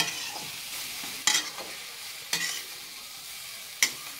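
Boiled potato pieces sizzling in oil in a steel kadhai, with a steady hiss. A metal spatula scrapes and knocks against the pan four times as the potatoes are stirred.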